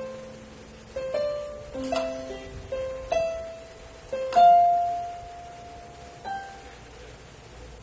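Casio LK-150 electronic keyboard playing a slow melody one note at a time. The loudest note comes about four seconds in and is held for nearly two seconds before it fades. A single soft note follows, then the sound dies away.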